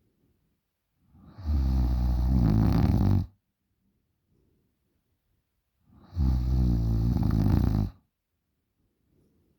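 A 20-year-old woman snoring loudly in her sleep: two long snores of about two seconds each, the first about a second in and the second about six seconds in, with near quiet between them.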